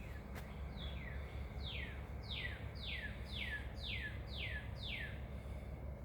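A bird calling a series of about eight evenly spaced notes, each sweeping down in pitch, over a steady low hum.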